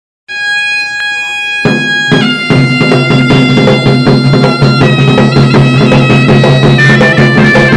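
Intro music: a melody of long held notes over a steady low drone, starting just after the opening and filling out when the drone comes in at about a second and a half.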